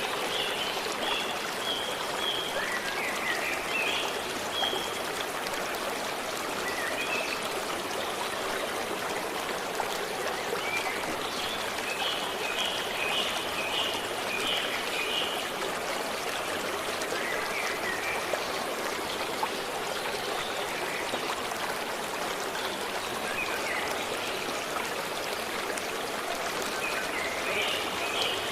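A forest stream running steadily, with birds singing short chirping phrases over it now and then: at the start, a run of repeated notes near the middle, and again near the end.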